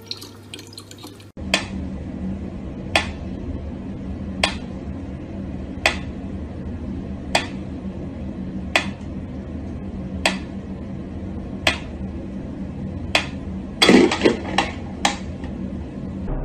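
Mechanical pyramid metronome ticking slowly and evenly, about once every second and a half, with a louder brief clatter of knocks near the end. It starts after a second of running tap water.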